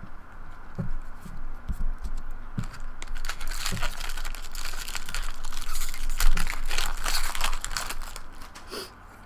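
A few light knocks from cards being handled, then a trading-card pack wrapper being torn open and crinkled for several seconds.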